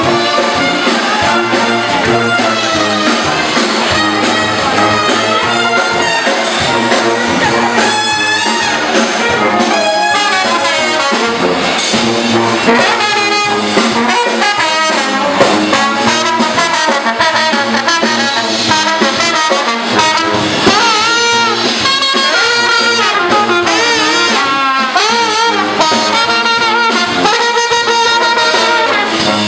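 Live brass band playing an upbeat jazz tune: trumpet and trombone lead over saxophone and sousaphone, with drums keeping time.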